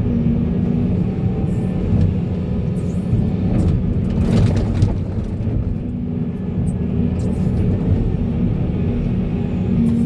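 Heavy diesel engine of a Volvo excavator running steadily under load, with a burst of noise lasting about a second around four seconds in.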